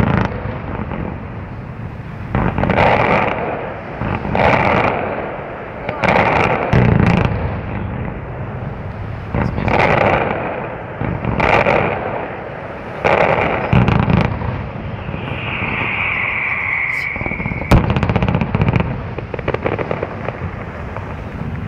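Fireworks display: a rapid series of loud shell bursts, each followed by crackling, with a whistling tone for about two seconds shortly before the loudest bang near the end.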